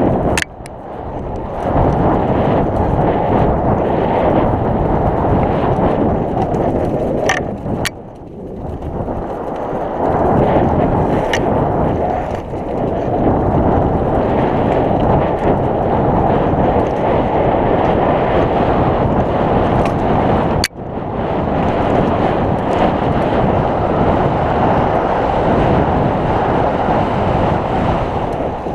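Wind rushing over an action camera's microphone and mountain-bike tyres rumbling on a dirt trail during a downhill descent, a steady low noise that dips about a third of the way through and cuts out for an instant later on. A few sharp clicks and rattles from the bike break through along the way.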